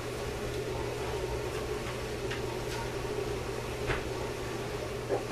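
A pot of peanuts in salted water heating on an electric stove, steaming but not yet boiling: a steady low hum and hiss with a few faint ticks.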